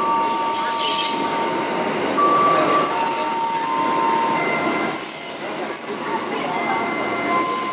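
Passenger train coaches rolling past along the platform: a steady rumble of steel wheels on rail, with thin, high squealing tones from the wheels that keep coming and going.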